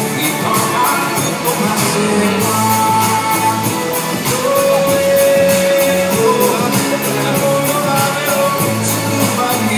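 Music: a song with singing and guitar over a steady beat.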